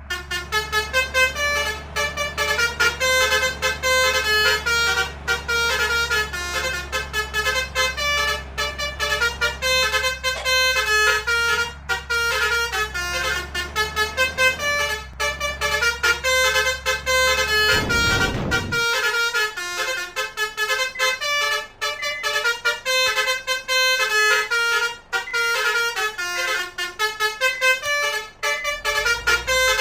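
Basuri multi-tone bus horn ('om telolet') playing a fast running melody of short horn notes over a low engine hum. About eighteen seconds in, a brief rush of noise sounds and the low hum drops away while the horn melody carries on.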